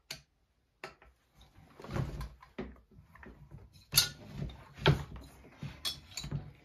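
Clicks, scrapes and knocks of a Stihl MS461 chainsaw and hand tools being handled on a wooden workbench during teardown. The loudest knock comes about four seconds in, another about a second later, with lighter clicks near the end.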